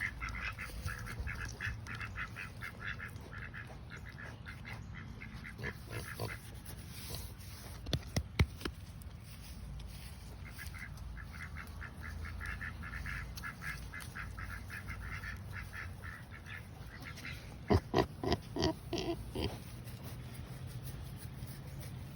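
Farm animals calling: ducks quacking in fast chattering runs, with a pig grunting among them and a louder burst of calls about three-quarters of the way in. A couple of sharp clicks come in the middle.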